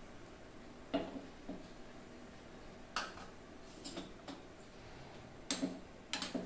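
A handful of sharp clicks and knocks from a small pan of raisins frying in ghee being handled on a gas stove, spaced a second or so apart and coming closer together near the end as a steel spoon stirs and clinks against the pan.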